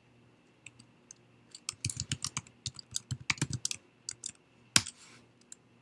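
Typing on a laptop keyboard: a quick run of keystrokes, then one louder key press about five seconds in.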